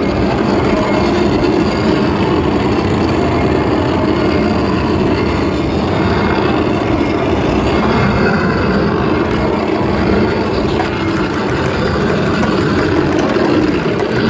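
Loud, steady din of an amusement arcade: game machines and rides running together, with no clear voice standing out.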